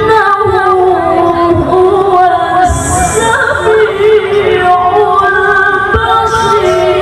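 A woman reciting the Quran in melodic tilawah style, holding long notes that waver and turn in ornamented runs, with short breaks between phrases.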